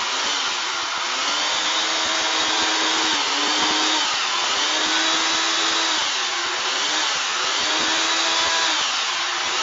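Food processor motor running continuously, blending a thick, dough-like base mixture; its pitch wavers slightly a few times as the load shifts.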